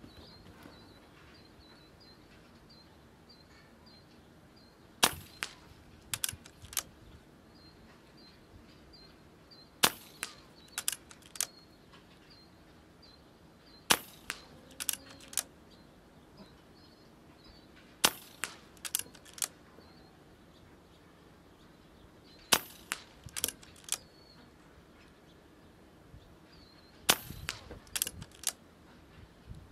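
A .25-calibre Brocock Concept XR PCP air rifle fired six times, a sharp crack about every four to five seconds, each shot followed within a second or two by two or three lighter clicks.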